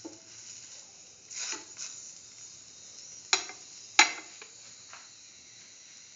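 Flatbread sizzling faintly in a hot pan after being turned over, with a soft knock about one and a half seconds in and two sharp clicks against the pan a little after three and four seconds in.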